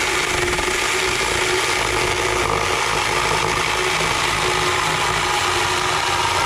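Cordless 6-inch mini electric chainsaw running steadily while cutting through a wooden 2x4: a steady motor whine with the chain chewing through the wood.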